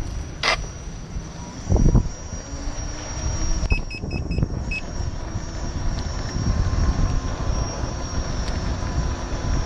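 Gotway MCM4 electric unicycle riding on a paved footpath, heard from a camera mounted low on the wheel: steady tyre and road rumble with wind noise. There is a thump about two seconds in, and a quick run of about five short high beeps about four seconds in.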